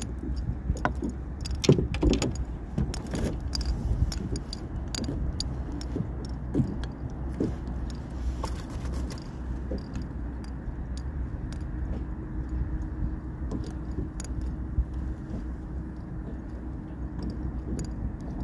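Scattered light clicks and knocks of fishing tackle being handled, clustered in the first few seconds, over a steady low rumble.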